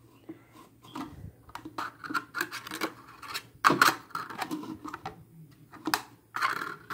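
Plastic clicking and scraping as a Sharper Image alarm clock is handled and its parts worked together, with two louder clacks, one a little past halfway and one near the end.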